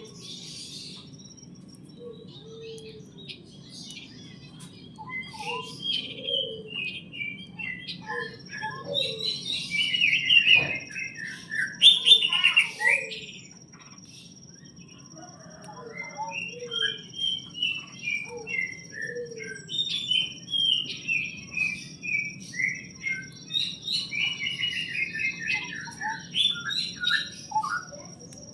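A group of small birds chirping and twittering in quick runs of short notes, busiest in two stretches with brief lulls between. A faint steady high tone runs underneath from about a third of the way in.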